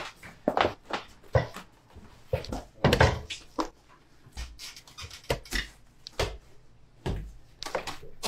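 Large mass of bread dough being kneaded and folded by gloved hands on a wooden table: irregular soft slaps and thumps, about one or two a second, loudest about three seconds in.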